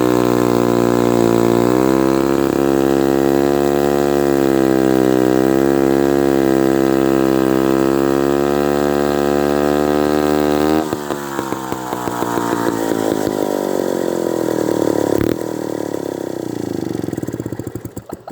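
Lombard 3-1/2D chainsaw engine running at a steady high speed with a slight dip about a second and a half in. About eleven seconds in it drops to a lower, wavering speed, then slows, sputters through its last few strokes and stops near the end.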